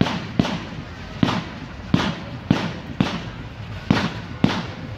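Low-noise display fireworks firing in rapid sequence: a steady run of sharp shots, about two a second.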